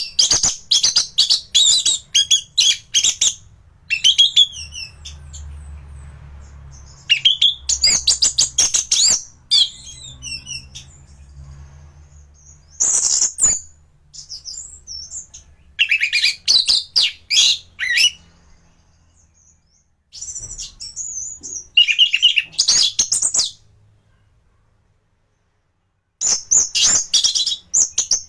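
Orange-headed thrush (anis merah) singing in loud, fast phrases of high chattering and whistled notes, six phrases broken by short pauses.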